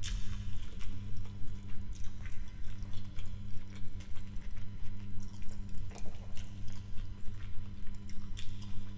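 Close-miked eating sounds: wet chewing and mouth clicks of someone eating jollof rice and stew by hand. Underneath are a steady low hum and a regular soft pulse of about three beats a second.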